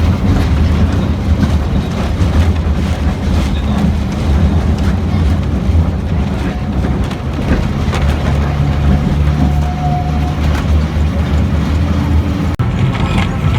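Diesel engine of the Botchan Ressha replica steam locomotive running steadily as the train travels, a continuous low hum over rumbling running noise. About eight seconds in, the engine note shifts and a higher hum joins it.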